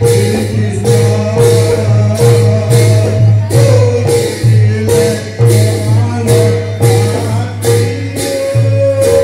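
Live devotional music with a khol barrel drum: bright metallic jingling strokes keep a steady beat about twice a second over sustained held notes.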